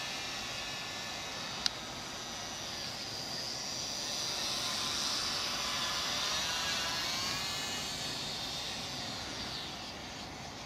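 Small RC plane's electric brushed motor and propeller in flight at about half throttle: a high whine whose pitch and loudness drift slowly up and down as it flies around, getting quieter near the end. A single short click about a second and a half in.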